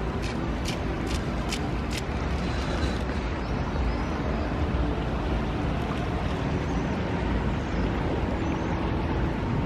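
Steady outdoor rumble, heavy in the low end, with a run of light clicks about every half second in the first two seconds.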